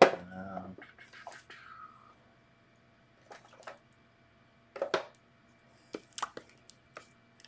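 A sharp knock at the start, then scattered light clicks and taps of plastic paint pots and a brush being handled while a green paint is got out for touch-ups.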